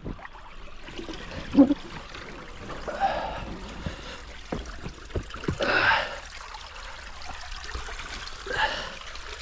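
Single paddle stroking the creek water, a splashing swish about every three seconds over the steady trickle of the stream, with one hollow knock of the paddle against the boat about one and a half seconds in.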